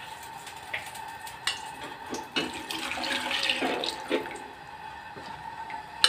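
Cornflour-thickened stock poured from a bowl into a pot of noodle soup, splashing and gurgling loudest in the middle, with a few light knocks.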